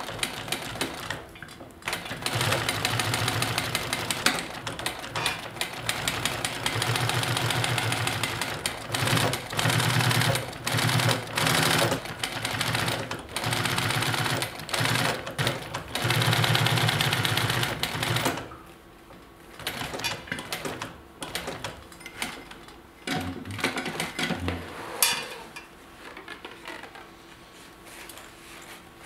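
Industrial sewing machine stitching leather in start-stop runs of a few seconds each, the needle hammering fast and evenly. The running stops after about eighteen seconds, leaving only a couple of brief slow stitches and light clicks.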